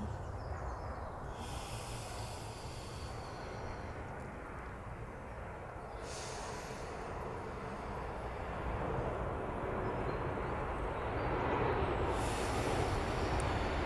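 A woman's slow, deep yogic breathing, long drawn inhales and exhales close to an earphone microphone. Beneath it a steady low rumble grows louder toward the end.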